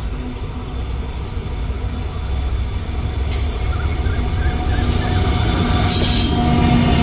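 A freight train rolling past with a low rumble that grows steadily louder. Sharp high-pitched hissing bursts from the wheels on the rails come in about three seconds in and again twice before the end.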